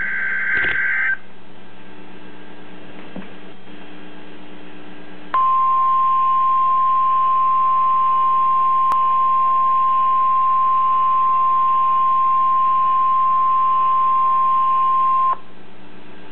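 NOAA Weather Radio emergency alert played through a small Boston Acoustics speaker: the buzzing tail of the digital SAME header burst ends about a second in, then after a few seconds of faint hum the 1050 Hz warning alarm tone sounds as one steady, piercing tone for about ten seconds and cuts off suddenly. The tone marks the start of a watch or warning broadcast, here a tornado watch.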